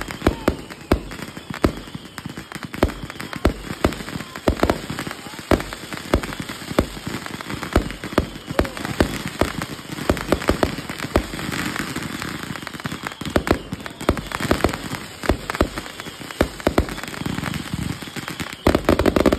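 Fireworks going off in a steady barrage: a fast run of sharp bangs, several a second, as shots launch from the ground and burst overhead.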